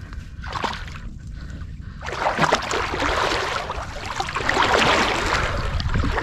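Water sloshing and splashing, starting about two seconds in and growing louder, over a low rumble.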